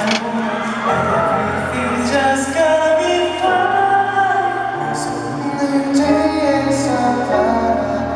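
A male singer sings a slow pop ballad live over backing music through the concert sound system, with long held notes and sustained low chords under them.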